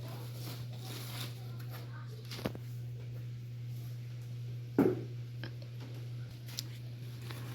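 A few sharp knocks and clicks from the panels and hardware of a flat-pack cabinet being handled during assembly, the loudest about five seconds in, over a steady low hum.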